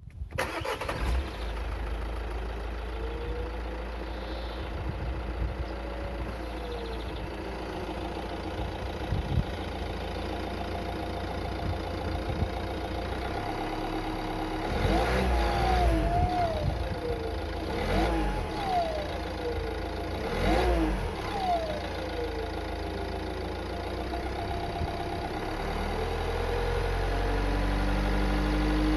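Renault Scénic III 1.6 dCi 130 four-cylinder turbodiesel running at idle, with a whine that slowly rises and falls in pitch. It is blipped three times in the middle, each time rising and falling, and runs a little louder near the end. The owner hears an odd noise and suspects a hose, the turbo or a pulley.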